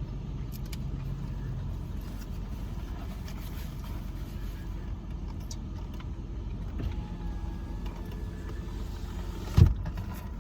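Steady low hum of a car's idling engine and cabin, with a few faint clicks and a sharp thump near the end.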